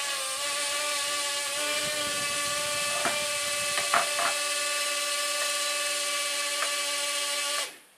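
The small propeller motors of an HF F803C mini quadcopter whine steadily at high speed with the transmitter switched off. The drone has lost its radio link and the motors run on instead of stopping, the fault that makes it fly away. A few light clicks come about halfway through, and the whine cuts off suddenly near the end.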